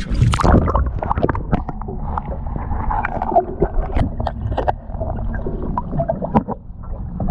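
Water heard through a submerged action camera: a dense, muffled sloshing and gurgling with many small knocks and bumps against the housing.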